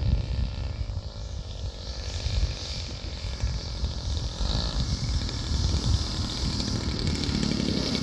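Engine of an RC model biplane running as it comes in to land, growing louder as it nears and settling onto the grass near the end. Wind gusts rumble on the microphone.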